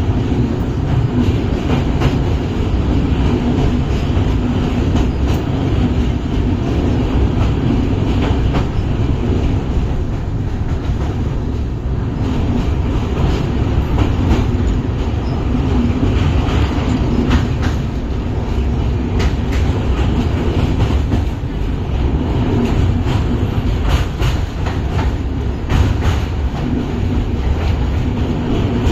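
Wheels of an LHB passenger coach rumbling and clattering over a steel truss railway bridge, heard from aboard the moving train: a loud, steady low rumble with irregular sharp clicks from the rail joints and bridge deck.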